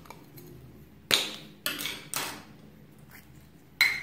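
Hard plastic case of a clock-shaped slime container being pried apart: a sharp snap about a second in, two more clicks and scrapes close after, and a final sharp click with a brief ring near the end.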